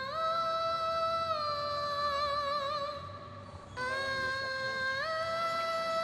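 Background music: a slow, wordless melody of long held high notes in a voice-like tone, stepping up and back down, with some vibrato and a short pause about halfway through.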